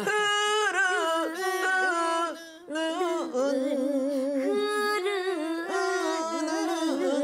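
A voice singing the word '흐르는' (heureuneun) in Gyeonggi minyo folk-song style, with long held notes ornamented by a wavering vibrato, in two phrases with a short break a little under three seconds in.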